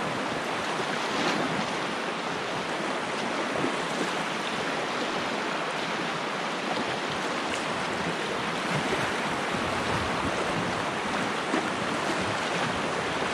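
Whitewater rapids rushing around a packraft: a steady, even noise of fast-flowing water.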